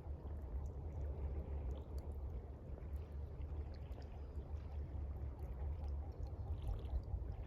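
Gentle water by a shore over a steady low rumble, with a campfire's faint, scattered crackles.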